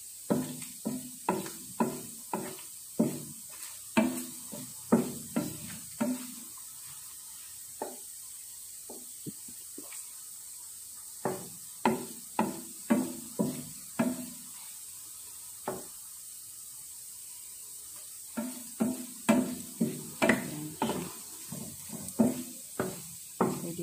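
Wooden spatula stirring diced pork in a non-stick frying pan, knocking and scraping against the pan in bursts of quick strokes, about two a second, with pauses between. Under it is a faint sizzle of frying oil.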